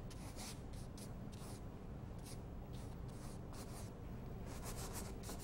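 Faint scratchy strokes of a paintbrush dragged across canvas, coming in short separate swipes with a quick run of them near the end, over a low steady room hum.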